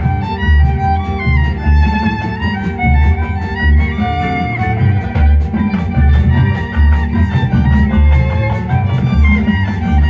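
Marching showband playing a field show: held melodic lines from the winds, mallet percussion, and a heavy low drum beat pulsing underneath.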